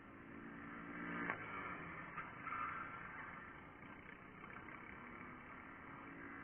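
Racing kart engines running at speed around the circuit: one kart goes through the corner and away, its engine note coming and going, with other karts heard further off. There is one short sharp tick about a second in.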